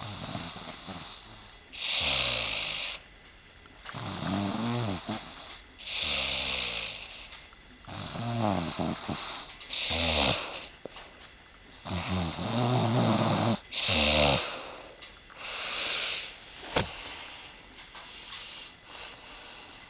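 Someone sound asleep snoring, about one snore every two seconds. Each snore has a pitched rattle that bends in pitch, together with a breathy hiss.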